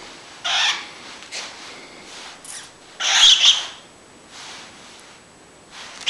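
A cockatiel giving a few short, harsh squawks. The loudest comes about three seconds in, with fainter ones before and after.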